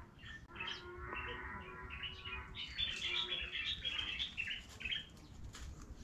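Birds calling and chirping: a held, even-pitched call for the first couple of seconds, then a busy run of short high chirps until about five seconds in.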